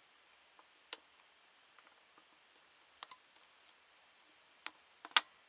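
Diagonal wire cutters snipping the thin wires of a laptop battery pack of 18650 lithium-ion cells: four sharp snips one to two seconds apart, the loudest near the end.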